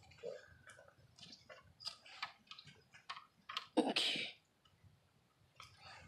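Faint scattered clicks and rustles of handling noise, with one louder rustling scuff about four seconds in.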